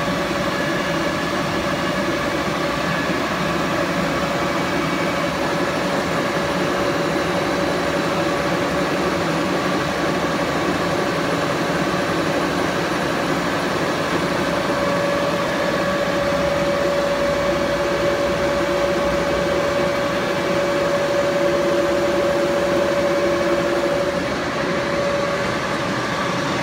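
76-inch Bullard vertical turret lathe running with its table spinning: a steady mechanical hum from the drive and gearing. A steady whine comes up more strongly about halfway through and eases off near the end.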